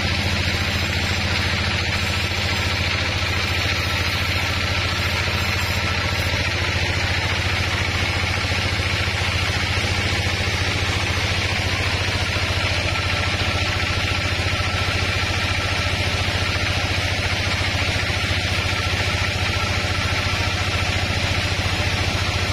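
Band sawmill's engine running steadily at idle with a low, even hum, while the saw stands between cuts.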